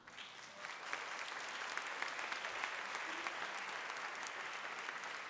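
Audience clapping. It starts right after a pause and swells over the first second, then holds steady and eases slightly near the end.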